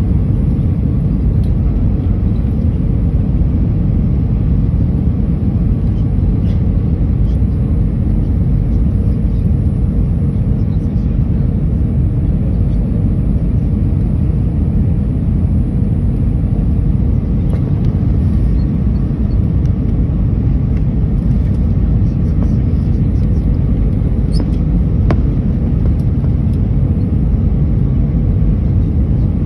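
Steady low rumble of an airliner's jet engines and rushing airflow, heard inside the passenger cabin as the plane descends on approach, with a faint steady hum over it. A single small click about 25 seconds in.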